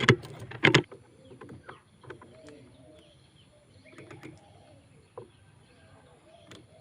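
Pigeons at the nest: two loud thumps in the first second, then soft, low cooing on and off.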